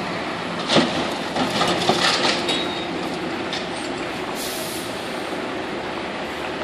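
Concrete mixer truck reversing slowly with its diesel engine running steadily. About a second in comes a cluster of sharp squeaks and clanks lasting about two seconds, and about four and a half seconds in a short hiss of air, as the truck brakes to a near stop.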